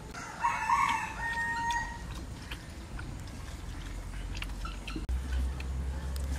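A rooster crows once near the start, a single pitched call held for about a second and a half.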